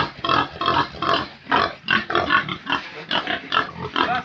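Pig calling in short, loud, rapidly repeated cries, about three a second.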